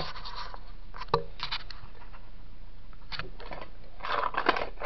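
Thin metal spoke scraping and clicking against a coffee can as it is worked through the lid: a sharp click about a second in, then several short scrapes.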